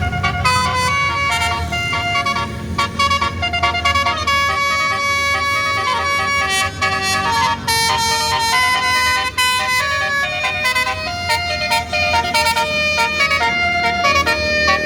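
A bus's multi-tone basuri 'telolet' horn playing a tune in quick stepped notes, over a low engine rumble.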